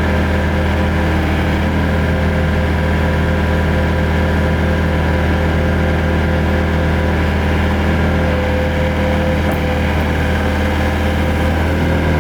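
2014 Bobcat T770 skid steer's diesel engine idling steadily, with an even, unchanging note.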